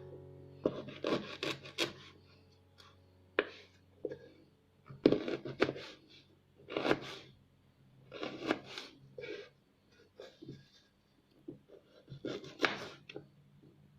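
Ginger being scraped, in about a dozen irregular scraping strokes with short pauses between them.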